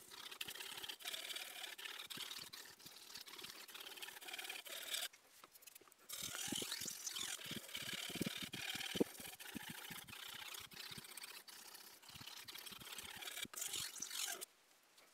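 Chef's knife blade stroked back and forth over the wet 6,000-grit side of a whetstone, polishing and refining the edge: a soft, repeated scraping hiss. It pauses briefly about five seconds in and stops just before the end.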